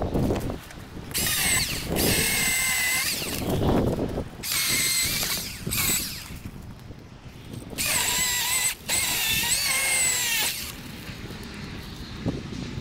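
Milwaukee M18 Fuel battery chainsaw cutting into a cedar in three bursts of a few seconds each, its electric motor whining and its pitch dipping and rising under load.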